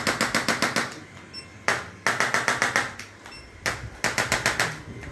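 Hands tapping rapidly on a patient's body during chiropractic treatment: three short runs of about ten taps a second, each lasting under a second, with pauses between.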